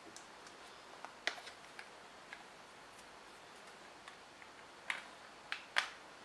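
Light, scattered clicks and taps from handling the on-camera microphone and plugging its 3.5 mm cable into the jacks, a few in the first two seconds and a sharper group about five seconds in.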